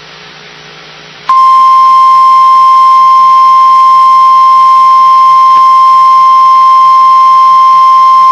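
Emergency alert warning tone: a single loud, steady pitch near 1 kHz, the 1050 Hz alert tone that comes before a weather warning is read. For about the first second only faint radio hiss is heard, then the tone starts abruptly and holds.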